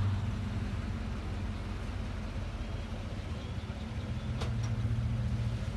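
2018 Chevy Silverado Z71 idling through a 3-inch dual exhaust with a Flowmaster Super 10 muffler, the factory catalytic converters kept. It gives a steady low hum that swells slightly about four seconds in.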